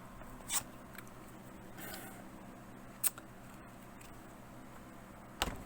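Sharp plastic clicks and a soft scrape as a thin pry tool works along the edge of a laptop's plastic bottom case to release its clips: three clicks spread over the few seconds, the loudest near the end.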